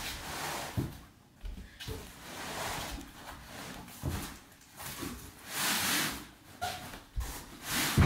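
A rolled rug being pulled out of a long cardboard box and dragged across a laminate floor: several swells of scraping and rustling, with a few dull thumps between them.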